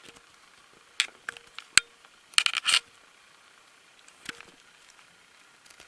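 Hands handling headphones and their plastic packaging: a few sharp clicks and short crinkly rustles, the busiest cluster about two and a half seconds in, with another click near the middle.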